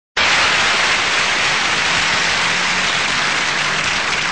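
Studio audience applauding steadily, starting abruptly at the opening of the sketch.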